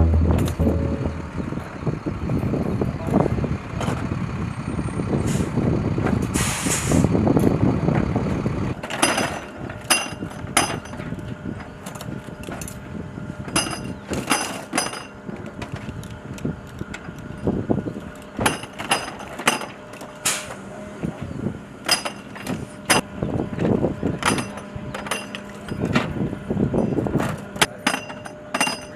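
A heavy vehicle's engine running, with a short hiss of air about a third of the way in; then the engine drops away and a string of sharp, ringing metallic clinks and clanks follows, like 25 mm ammunition rounds and linked belts being handled while an M242 Bushmaster chain gun is loaded.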